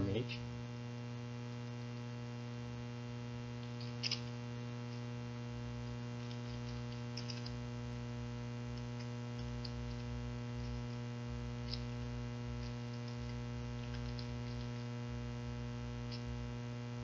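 Steady electrical mains hum, with a few faint, scattered clicks of typing on a laptop keyboard.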